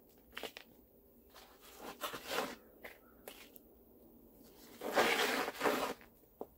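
Gritty rustling and scraping of potting soil being worked by hand into a small pot around a cutting's roots: several short scrapes, with a longer, louder one about five seconds in.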